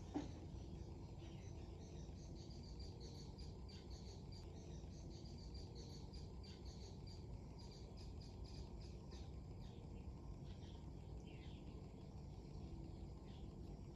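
Strong wind rumbling on the microphone, with many short, high bird chirps scattered throughout. A brief knock comes just after the start.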